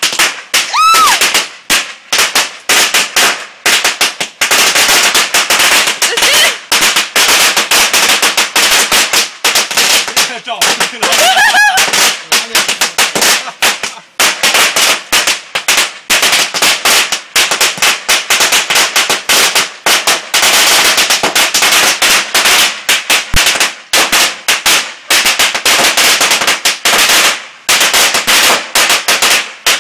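A long string of firecrackers going off on the ground in a rapid, unbroken crackle of sharp bangs.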